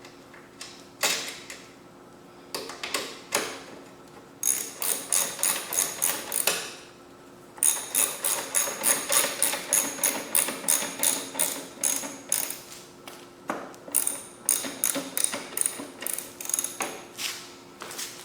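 Ratchet wrench clicking in quick runs of about four clicks a second, tightening a lock nut onto the bolt that holds a lawnmower handle, with a few separate knocks of tools and metal before and after.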